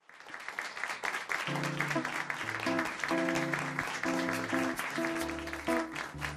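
Acoustic band playing the instrumental intro of a ballad: a dense, irregular patter starts at once, and held piano and guitar chords come in about one and a half seconds in, changing every half second or so.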